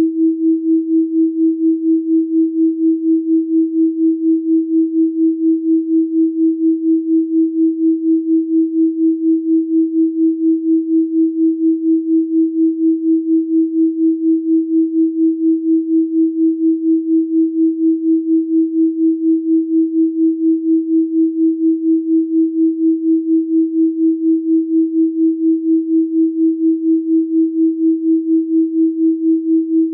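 Electronically generated 324 Hz sine tone, a single steady pure pitch pulsing gently in loudness about three times a second.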